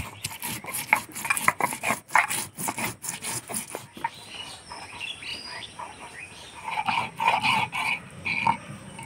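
A stone roller crushing whole ginger, cumin and coriander seeds on a flat grinding stone (shil-nora), making a fast run of sharp knocks for the first four seconds. Near the end come a few short animal calls.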